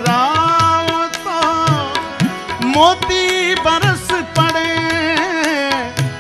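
Live ghazal music: a male voice holding and bending long wordless notes, with a harmonium underneath and tabla strokes keeping the beat.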